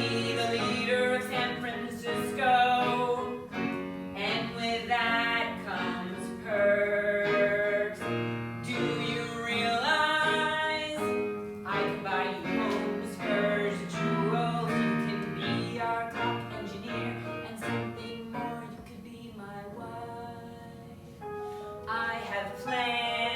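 A song sung live with instrumental accompaniment: a sung melody over sustained chords throughout.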